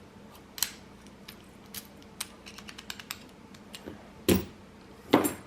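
Padlocks and lock picks being handled: a string of small metal clicks and taps, with two louder knocks near the end.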